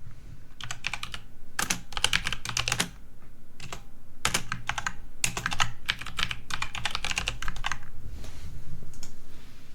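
Typing on a computer keyboard: quick runs of key clicks with brief pauses between words.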